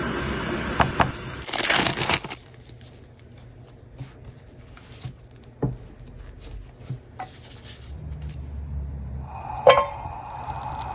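Food preparation sounds: a crinkling rustle as bread slices are handled on a wooden chopping board, then scattered clicks and taps as a plastic round cutter presses through a bread slice. A sharp knock comes about ten seconds in, and butter starts sizzling in a grill pan near the end.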